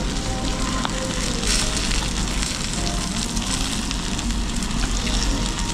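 Tandoori veg platter sizzling on its hot serving plate: a steady hiss with faint small crackles, loudest about a second and a half in. Faint background music.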